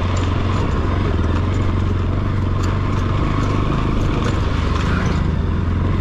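Motorcycle engine running at a steady pace while riding, with rushing noise from the ride and faint scattered ticks, typical of tyres on a gravel road.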